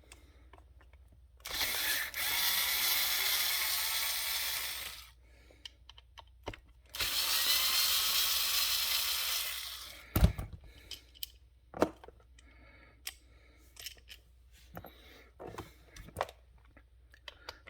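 Cordless power driver running in two bursts of a few seconds each, backing out the screws of the impact wrench's housing. After the second burst come scattered clicks and knocks of screws and metal parts being handled.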